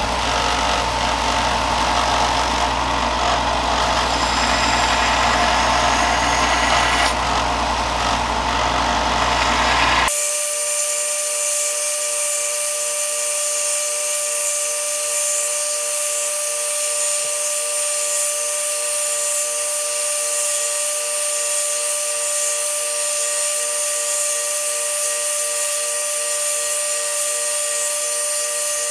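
Power tool running: a rough, noisy machine sound with a low hum for about ten seconds, then an abrupt change to a steady, higher-pitched motor whine.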